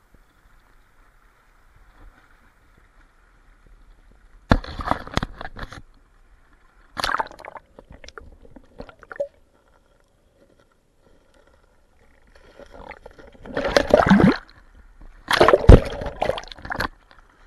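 River water splashing and gurgling against a waterproof camera held at and under the surface, in four separate bursts with near quiet between them, the last two the loudest.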